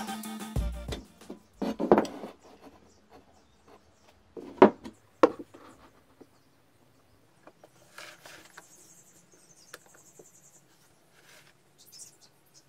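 Background music stops about a second in. Then come a few sharp knocks, the loudest two close together near the middle, as metal squares are set against a wooden table leg on a bench, followed by faint rubbing and light taps as a steel rule is laid down.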